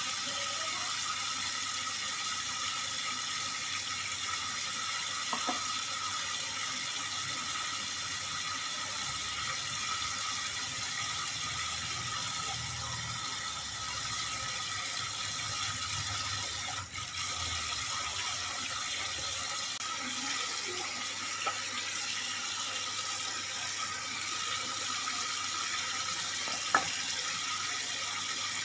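Kitchen tap running steadily into a stainless steel sink during dishwashing, with a few short knocks of dishes, the sharpest near the end.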